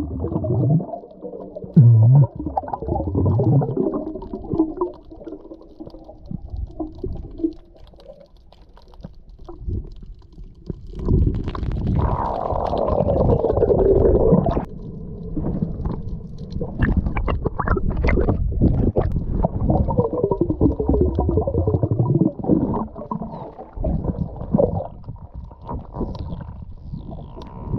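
A spearfisher grunting underwater to call in grouper: a series of low, drawn-out grunts, muffled by the water, some sliding down in pitch. Sharp clicks and knocks come between them.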